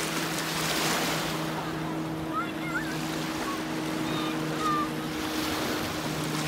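Small choppy waves washing onto a lake beach, swelling and fading, with wind on the microphone. A steady low hum runs underneath, and a few short chirps come through midway.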